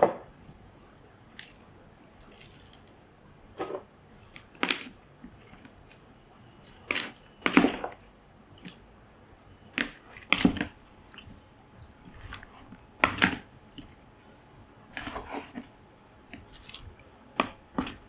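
Raw chicken pieces being stirred with a metal spoon in a plastic bowl with a little tamarind water: irregular short wet squelches of the meat and spoon scrapes, some coming in quick clusters.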